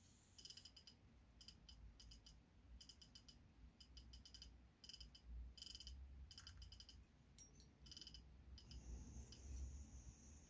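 Model railway locomotive running on the track: faint rapid clicking in short bursts, with a thin high whine that comes in near the end.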